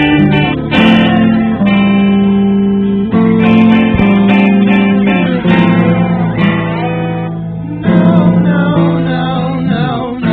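Background song in an instrumental stretch between verses: acoustic guitar plucked and strummed through sustained chords.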